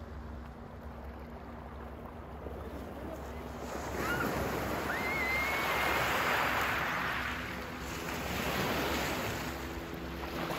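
Boat-wake waves washing in over a pebble riverbank, swelling about four seconds in and surging again near the end, with the faint steady run of a small motorboat's engine.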